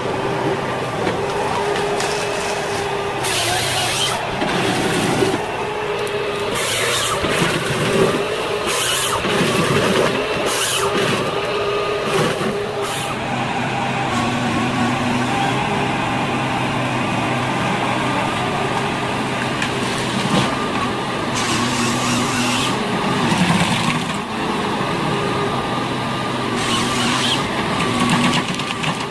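Wheeled forestry harvester working: its diesel engine runs steadily with a whine, and short hissing noises come again and again as the boom and harvester head move.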